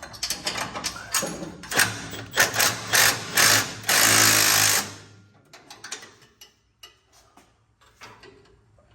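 A power wrench tightening exhaust bolts, run in several short bursts and then one steady burst of about a second, followed by a few faint tool clinks.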